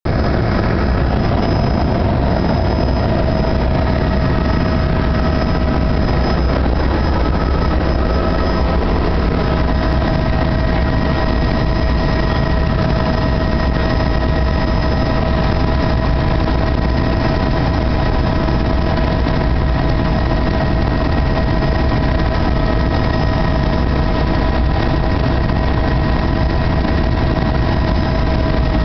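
Helicopter's turbine engine and rotors running steadily: a loud, constant low drone with a steady high whine over it.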